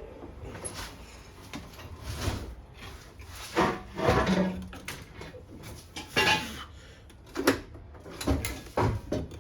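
Irregular metal clunks and scrapes, about eight in all, as a heavy RB20 cylinder head is worked by hand into place over the engine block.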